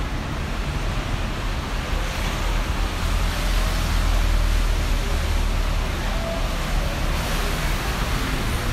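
City street traffic: a steady hiss of tyres on wet road with a low engine rumble, swelling as a vehicle passes about three to six seconds in.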